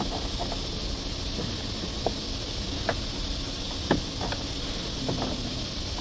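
A steady hiss, with a few faint clicks and taps from a screwdriver working at the edge of a plastic car door trim panel.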